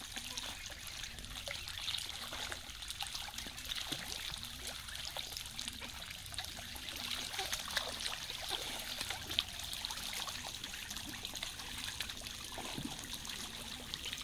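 Shallow stream water trickling and lapping, broken by many small splashes as a flock of domestic ducks bathes and dabbles in it.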